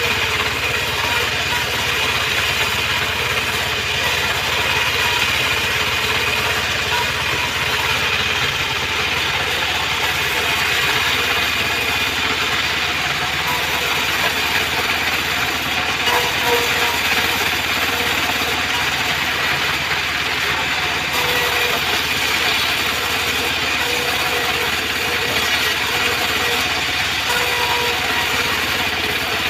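Homemade band sawmill running, its blade ripping acacia boards into planks, making a steady, unbroken machine noise.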